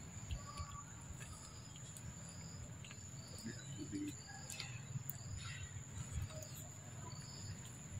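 Steady high-pitched insect drone from the forest, with a few faint short chirps scattered over it.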